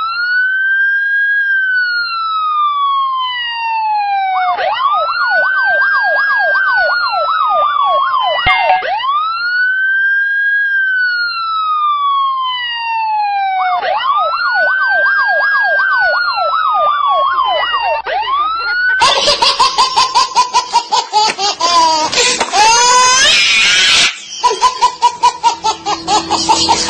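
Siren sound effect: long wails that rise sharply and then fall slowly, alternating with fast yelping sweeps of about three a second. About two-thirds of the way through it gives way to loud baby laughter in rapid bursts.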